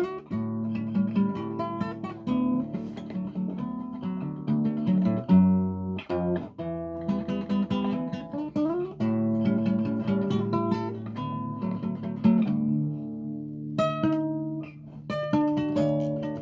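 Acoustic guitar playing a choro: a plucked melody of quick notes over bass notes.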